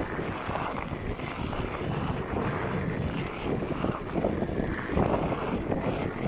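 Wind rushing over the microphone of a Onewheel rider moving along a dirt trail, with the low rumble of the board's tyre rolling on the packed dirt. The noise is steady and uneven, with no clear motor tone.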